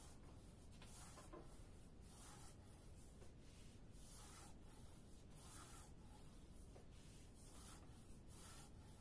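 Faint, repeated swishes of a long, thin wooden rolling pin (oklava) with thin baklava dough wound around it, rolled and rubbed back and forth over a floured wooden board, about one stroke a second.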